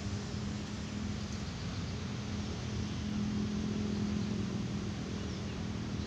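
Steady mechanical drone with a low hum, like distant engine or traffic noise, swelling slightly about three seconds in.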